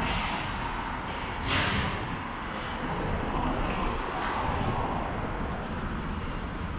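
City street ambience: a steady low rumble of traffic, with a brief burst of hiss about a second and a half in.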